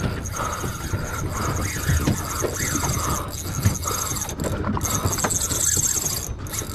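Fishing reel ticking rapidly as a hooked mahi-mahi pulls on the bent rod, over a low rumble of wind and boat noise.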